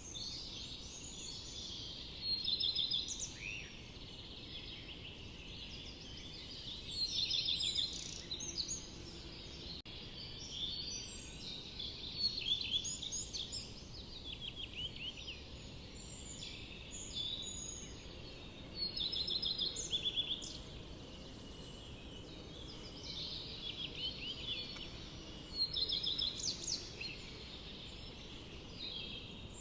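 Songbirds singing: short bouts of rapid, high, chirping notes every few seconds over a steady low background hiss.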